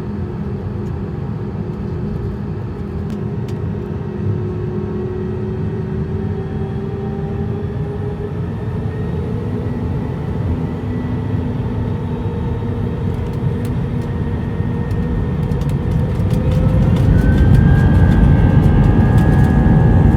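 Airbus A320 jet engine noise heard inside the cabin: a steady rumble with slowly drifting tones, then about three-quarters of the way through a rising whine and the noise grows louder as the engines spool up.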